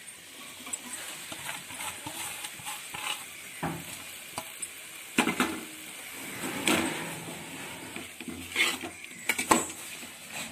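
A steel ladle stirring and scraping drumstick leaves and grated coconut in a stainless-steel pan, with a few sharper clinks of metal on metal and a light sizzle underneath.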